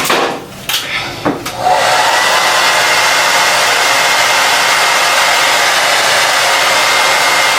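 Handheld hair dryer running steadily as a loud, even rush of air with a faint whine, starting about two seconds in after a few short handling knocks. It is drying the lace melt spray under an elastic band to set the wig's lace.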